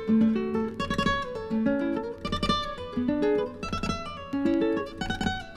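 Flamenco guitar music played back from a vinyl LP: quick phrases of plucked notes, each note struck sharply and then dying away.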